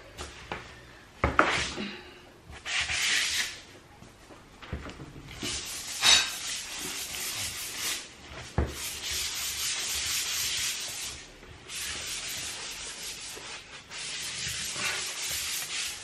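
Hand scrubbing of wet ceramic floor tiles and grout: long scraping strokes, each lasting a second or more, with a few sharp knocks between them.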